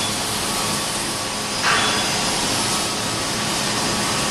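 Steady rushing background noise with a low hum, like running machinery or ventilation, and one brief louder sound nearly two seconds in.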